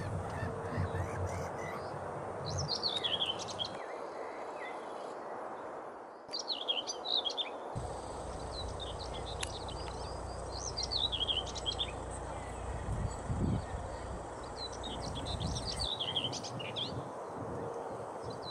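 Birds calling: clusters of short, high, down-slurred calls every few seconds over a steady outdoor background hiss. The low rumble of the background cuts out and returns abruptly a few times.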